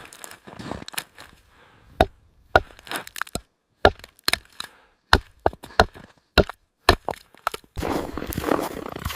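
A series of about a dozen sharp chopping knocks at uneven spacing, then a steady rushing noise near the end.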